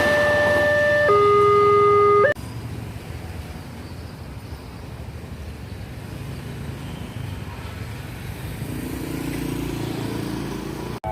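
A two-tone electronic warning signal, typical of a railway level-crossing alarm, alternates between a higher and a lower pitch about once a second, then cuts off suddenly about two seconds in. A steady low rumble follows, with a low hum joining near the end.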